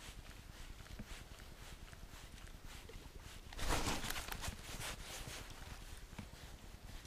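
Faint scuffs and light clicks of an angler shifting on a stony shore, with a louder crunching rustle about three and a half seconds in that lasts about half a second.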